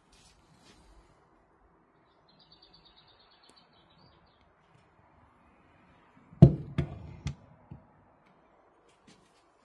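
Handling knocks as a 10-inch car subwoofer is turned over on a wooden table: three sharp thumps close together about six and a half seconds in, the first the loudest, then a lighter knock. Earlier, a faint high chirping.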